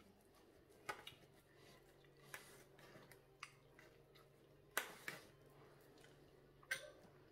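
Near silence broken by about six short, sharp clicks and taps of eating: a knife cutting food on a plate, chopsticks, and chewing.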